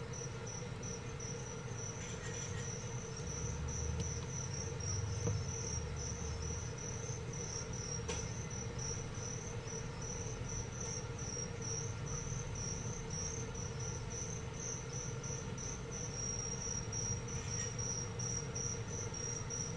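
Crickets chirping in a steady, even run of short high chirps, about two to three a second, over a faint steady hum.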